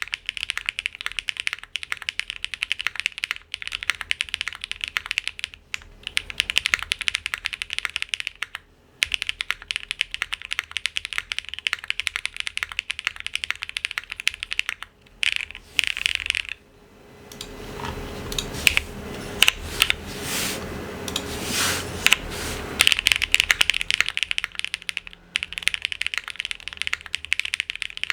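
Typing on a Geonworks W1-AT mechanical keyboard, built plateless on a 1.2 mm PCB with lubed Gateron x Geon Raw switches: a steady stream of quick key clicks. Brief pauses come about 9 s and 16 s in. From about 17 to 23 s comes a louder, deeper stretch of clacking.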